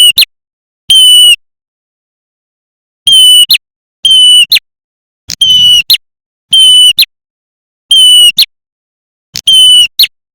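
Recorded prenjak merah calls played as a bird lure: a loud call repeated about eight times, each roughly half a second long, a steady high note that flicks sharply upward at its end. The calls come about once a second, with a longer pause of a second and a half near the start.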